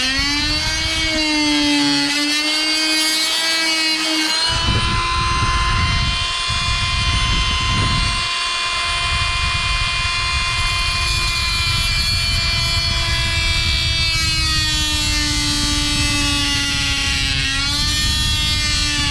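Harbor Freight oscillating multi-tool with a Ridgid wood-and-metal blade cutting through onyx: a steady buzzing motor whine whose pitch wavers slightly under load, with gritty grinding noise from the blade in the stone, heaviest a few seconds in.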